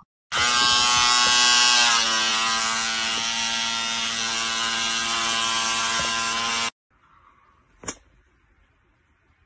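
Small handheld electric device buzzing steadily against a golden retriever's forehead. The buzz dips slightly in pitch about two seconds in and stops suddenly about seven seconds in. A single click follows about a second later.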